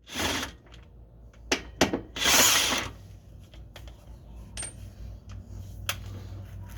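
A power tool running in short bursts, the longest and loudest just under a second long about two seconds in, with sharp metallic clicks and knocks between bursts.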